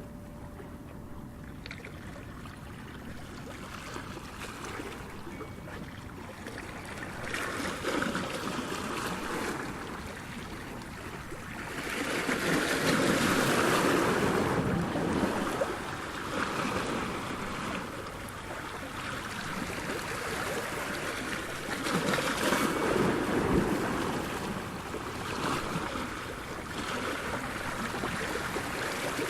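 Ocean surf: waves breaking and washing in, swelling and easing, with the biggest surge about halfway through and another near the end.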